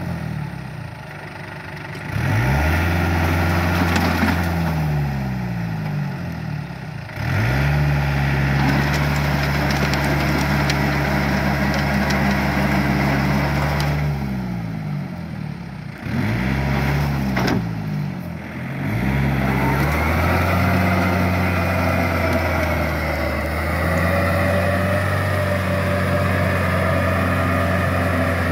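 Yanmar compact tractor's diesel engine running steadily while it pulls a rotary tiller through a flooded rice paddy. Its speed sags and picks back up several times.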